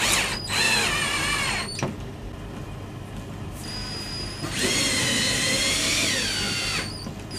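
Power drill drilling into the wall for pipe-clip fixings, in two runs of about one and a half and two seconds. The motor whine falls in pitch as each run ends.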